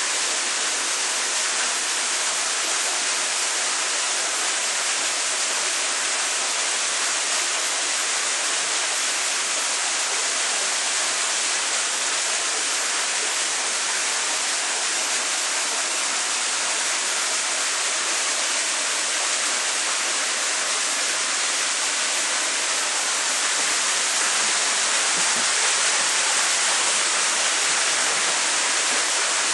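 Steady, even rushing of running water in a koi tank, with no break or change.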